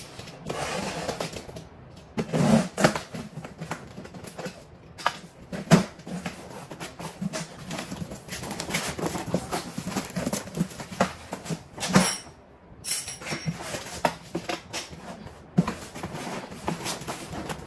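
Cardboard packaging being handled around a boxed appliance: irregular knocks, scrapes and rustles of cardboard flaps and plastic wrap, with a few sharper knocks standing out.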